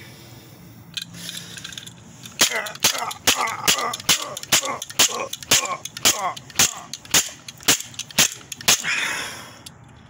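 A plastic toilet fill valve being smashed on a concrete floor: a rapid run of about fifteen sharp, loud cracking blows, roughly two a second, starting a couple of seconds in and stopping shortly before the end.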